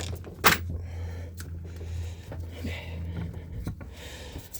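A sharp metallic clink about half a second in, then quieter scraping and clicking as a tool is worked in to pry a stuck two-stroke cylinder off its crankcase, over a steady low hum.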